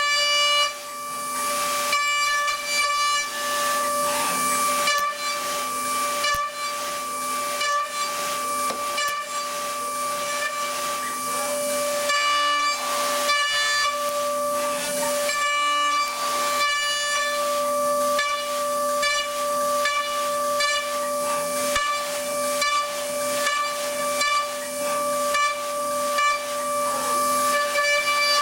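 DATRON high-speed CNC milling machine cutting: a steady spindle and cutter whine with a ladder of overtones, over a continuous hiss of cutting noise. The whine shifts briefly in pitch a couple of times.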